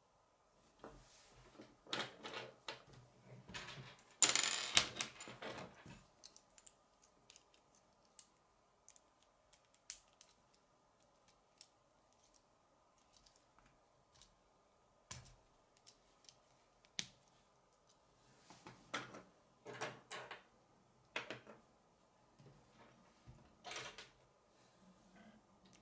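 K'nex plastic rods and connectors clicking and clattering as they are handled and snapped together, with the busiest rattle about four seconds in, a few single clicks in the middle and more clicking near the end, over a faint steady hum.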